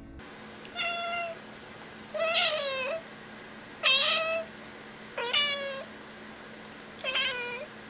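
A grey domestic cat meowing five times, about a second and a half apart. Each meow is short and bends in pitch.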